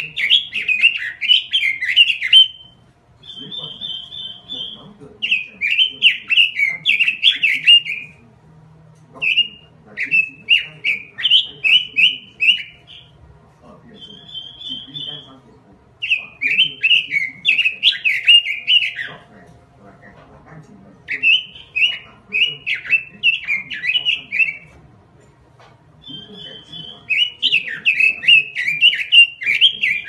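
Caged red-billed leiothrix (Pekin robin) singing energetically: about six loud warbled phrases of two to three seconds each, separated by short pauses. Several of the pauses hold a brief fast trill of higher repeated notes.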